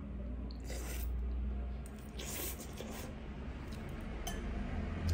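A person eating ramen noodles: slurping the noodles in about a second in, and again a little over two seconds in, then chewing with mouth noises. A low steady hum sits underneath.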